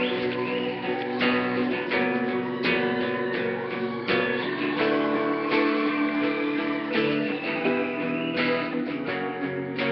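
Background music: an acoustic guitar strummed and picked, with no vocals.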